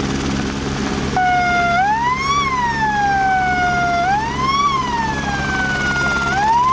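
Siren from a Power Sonix PSAIR22 600-watt loud hailer on a Eurocopter AS350 helicopter. It comes in about a second in on a steady tone, then wails up and down, each rise quick and each fall slow, about every two and a half seconds. The helicopter's steady drone runs underneath.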